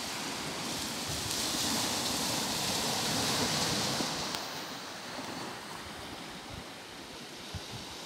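Small sea waves breaking and washing onto the shore: a steady rush of surf that swells in the first half and eases off about halfway through.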